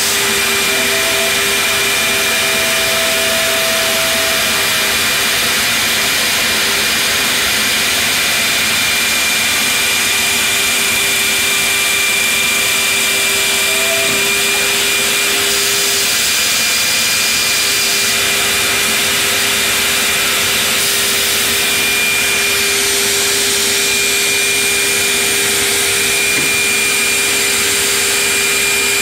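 Builders Automation CNC stair router's 7-horsepower spindle cutting into a pine stair stringer: a steady, loud high whine of the router bit in the wood over a constant rushing noise from the machine's dust extraction.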